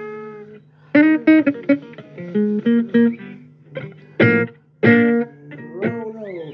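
Blues guitar played note by note: single plucked notes and short phrases that ring and fade, with notes bending in pitch near the end, over a steady low hum.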